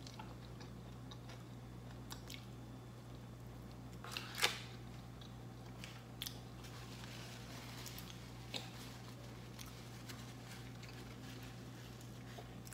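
A person chewing a bite of fried-fish taco close to the microphone, with a few scattered short mouth clicks, the loudest about four and a half seconds in. A steady low hum runs underneath.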